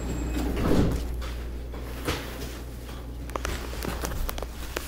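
Metro train's sliding passenger doors closing with a thump about a second in, over the steady low hum of the train car; a few light clicks follow.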